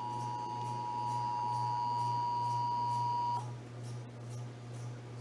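Emergency Alert System attention signal: a steady two-tone beep (about 853 and 960 Hz together) that cuts off abruptly about three and a half seconds in, over a steady low hum.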